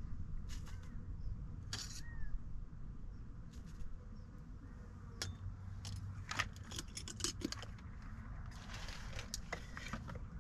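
Metal spoon clinking and scraping against a small metal camp pot, with a quick run of light clinks in the middle, followed by rustling and knocking as gear is handled.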